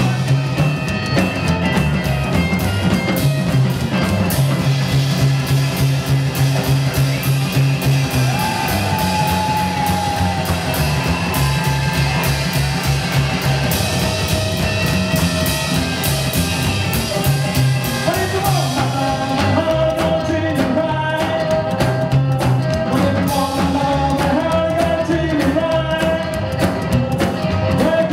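A rockabilly band playing live: upright bass, acoustic rhythm guitar, electric guitar and drum kit, with a male lead singer. The cymbals thin out about two-thirds of the way through.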